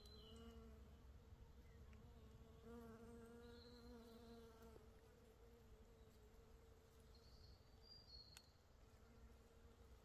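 A flying insect buzzing in a steady low hum, stronger briefly near the start and again for about two seconds a few seconds in, fainter the rest of the time. A few faint short bird chirps now and then.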